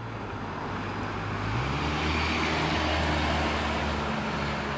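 A car driving past on a street: engine hum and tyre noise on the road, growing louder toward the middle and then easing slightly.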